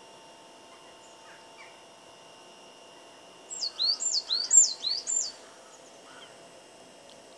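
A small songbird whistles a loud phrase of about four quick notes, each sweeping steeply in pitch, a few seconds in. Faint single chirps come before it.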